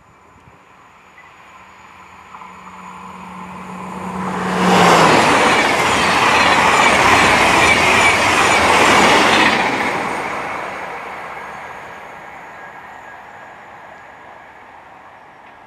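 A TGV inOui high-speed trainset passing at speed: a rising approach with a low hum that drops in pitch and cuts off as the power car goes by about five seconds in, then a loud rush of wheels and air with a rhythmic clatter from the bogies for about five seconds, fading slowly away.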